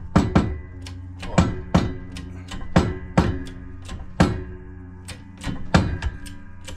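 Hydraulic jack of a 6-ton hand shop press being pumped while it presses a new wheel bearing into a side-by-side hub: sharp metallic clicks and clanks, mostly in pairs about every second and a half, each with a short metallic ring.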